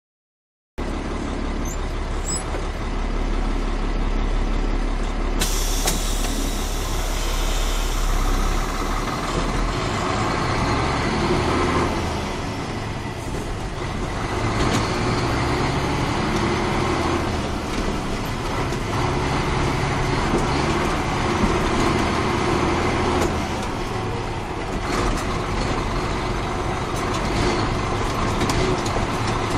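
Caterpillar 3406 inline-six diesel of a 1994 Ford L9000 truck running as the truck drives along. The engine note swells and dips a little as it goes.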